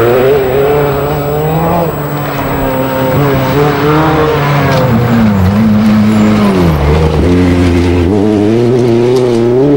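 Lancia 037 rally car's supercharged four-cylinder engine running hard, its pitch climbing and dropping back at gear changes. It falls away from about five seconds in, then climbs again near the end.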